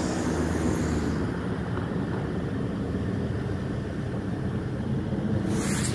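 A steady low rumble with a faint even hum under it, and a brief hiss near the end.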